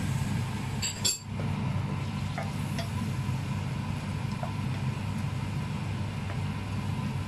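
Spoon scraping and clinking against a stainless steel wok while stirring chicken in soy sauce. There is one sharp clink about a second in and scattered small taps after it, over a steady low hum.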